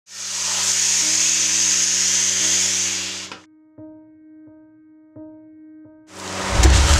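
Steady hissing with a low hum from traditional coffee roasting in a hand-turned drum over a wood fire, cut off after about three and a half seconds. Then come four soft, evenly spaced musical notes over near quiet, and the roasting hiss comes back near the end.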